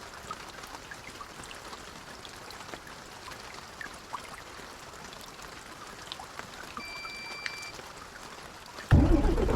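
Rain falling on an intercity coach bus: a steady soft hiss with scattered small drop ticks. A short electronic beep sounds about seven seconds in, and near the end a loud, low engine rumble starts suddenly.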